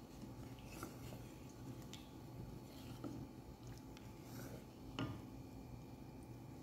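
Faint stirring of a sauce in a pan with a wooden spatula: a few soft taps and scrapes over a low steady hum.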